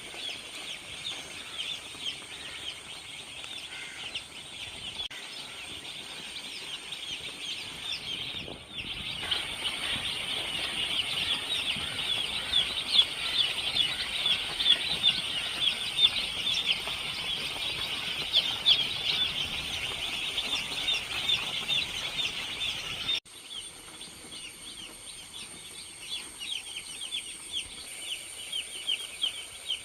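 A large flock of young chickens peeping together in a dense, continuous chorus of short chirps. It gets suddenly louder about a third of the way in and drops back down abruptly about three-quarters of the way through.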